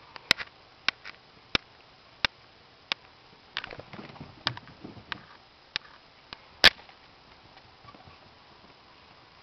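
A string of sharp clicks and taps, about one every two-thirds of a second and the loudest a little past halfway, with soft rustling between them near the middle: a cat's paws and claws on a hard floor as it plays.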